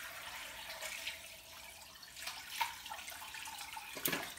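Bone broth pouring from a stainless steel pot through a nylon mesh strainer into a glass bowl, a steady trickle of liquid. A few light clicks come through, and there is a sharper knock about four seconds in.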